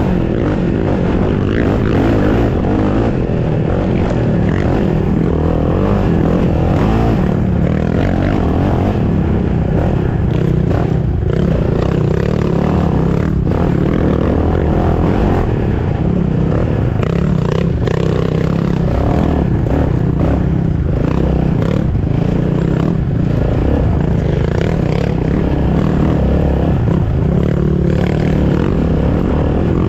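Race ATV engine running hard under throttle, its pitch rising and falling with the throttle, with scattered knocks and clatter of the quad bouncing over rough dirt.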